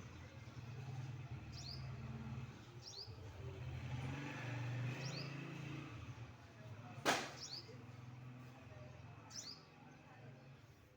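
A small bird's short, high double chirps, five of them spaced one to two seconds apart, over a steady low hum. A single sharp click about seven seconds in.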